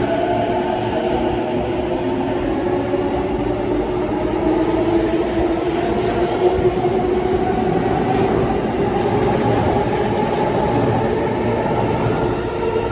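A JR East E233-series electric train pulling out of a station, its traction motors whining in steady tones over a continuous rumble of wheels on rail as it gathers speed.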